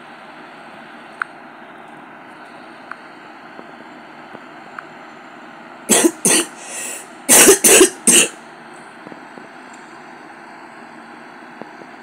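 A person coughing: a fit of about five sharp coughs over two seconds, about halfway through, over a steady low hiss.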